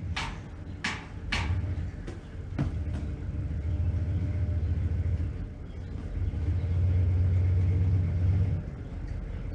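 Vehicle on the move: a steady low engine and road rumble that swells louder for a couple of seconds near the end, with a few sharp knocks in the first three seconds.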